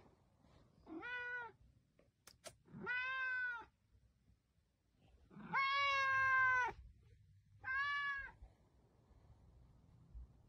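Domestic cat meowing four times with a plush toy held in its mouth; the third call is the longest.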